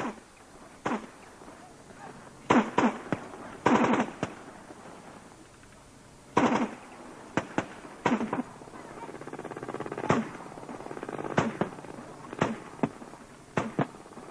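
Scattered gunshots and explosive bangs: sharp single cracks and short clusters at irregular intervals, a few ringing out briefly.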